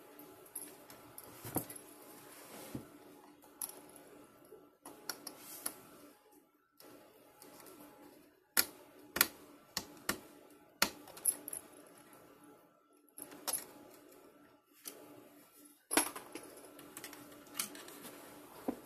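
Irregular sharp clicks and taps of hands connecting wires to the terminals of model railway current-detector boards, over a faint steady hum.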